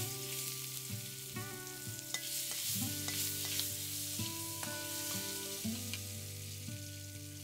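Lumps of pangas catfish fat sizzling as they fry in a little oil in an aluminium karahi, the fish's own fat serving as the frying oil. A metal spatula stirs them, with a few sharp scrapes and taps against the pan.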